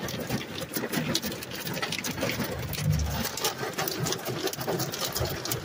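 Hail and rain hitting the car's roof and windows, heard from inside the car: a dense, rapid patter of small hits.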